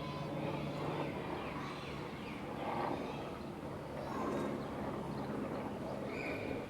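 New York City street ambience: a steady low hum with scattered short, high chirps and faint clatter over it.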